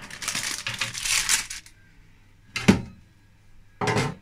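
Baking parchment rustling and crinkling as a baked cake is lifted out of a metal loaf tin, then two sharp metallic clinks about a second apart as the tin and wire cooling rack are handled.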